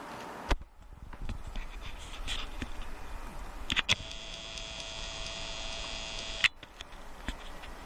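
Camera's zoom motor whining steadily for about two and a half seconds as the lens zooms out, starting and stopping with a sharp click. Another sharp click about half a second in.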